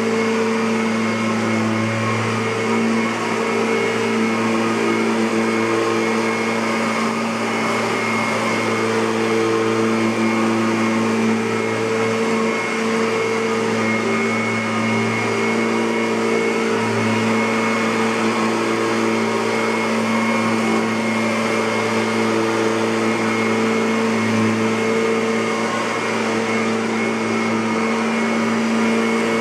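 Kirby Avalir (G10D) upright vacuum cleaner running steadily, a constant motor hum over fan rush.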